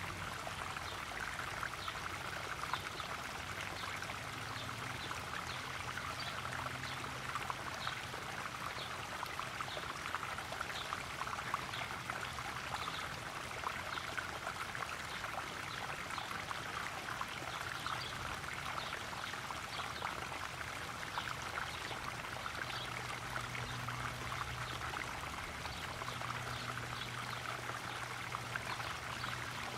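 Small garden pond waterfall splashing and trickling steadily into a koi pond, with a faint low hum underneath.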